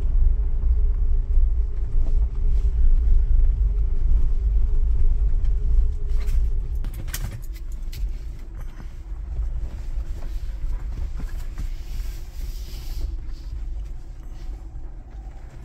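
Jeep Wrangler 4xe driving on electric power over a gravel dirt road, heard from inside the cabin: a low rumble of tyres on gravel, loudest for the first half, then quieter as the vehicle slows, with a few sharp ticks about seven seconds in.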